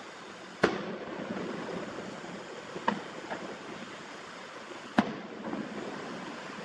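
Distant aerial firework shells bursting: four sharp booms, the loudest about half a second in and another at about five seconds, with two lighter ones around three seconds, over a steady rushing background. The audio runs at double speed.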